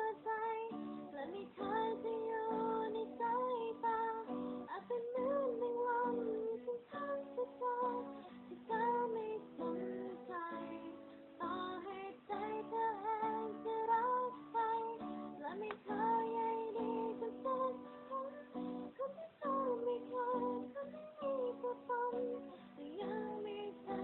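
A woman singing a slow Thai song over strummed guitar accompaniment, the sound thin and cut off in the highs like a live-stream upload.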